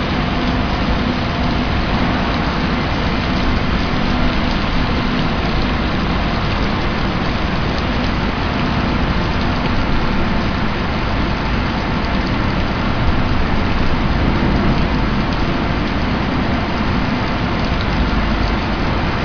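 An ERW steel pipe mill running: a loud, steady machinery noise with a few faint steady hums in it.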